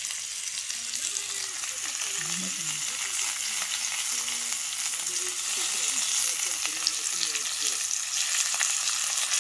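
Thinly sliced pork, garlic and mushrooms sizzling steadily in their fat on a dark round grill pan over a portable gas burner, a continuous hiss with fine crackles.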